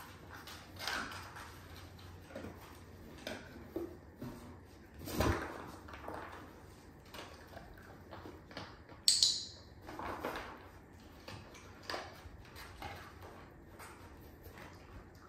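A dog rooting through a cardboard box of packing paper for its breakfast, with scattered rustles and knocks of cardboard and paper. A louder thump comes about five seconds in and a sharp crinkle about nine seconds in.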